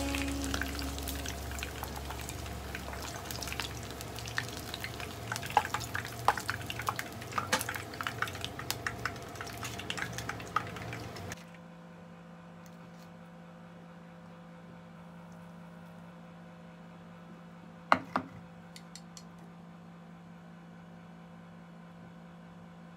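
Shrimp-and-vegetable kakiage (tempura fritters) frying in hot oil in a shallow pan: a dense crackling sizzle full of small pops that cuts off abruptly about eleven seconds in. A low steady hum is left, with a single sharp knock about seven seconds later.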